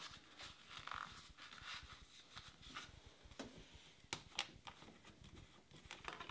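Near silence with a few faint clicks and taps of hands handling parts and a plastic oil jug, mostly in the second half.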